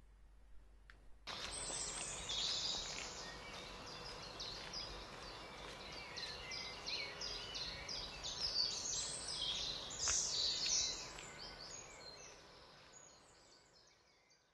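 Birds chirping, many quick repeated calls over steady outdoor background noise. The sound cuts in suddenly about a second in, is loudest in the middle and fades away near the end.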